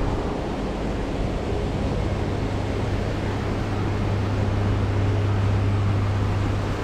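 Steady rushing background noise with a low electrical-sounding hum that grows stronger from about halfway in.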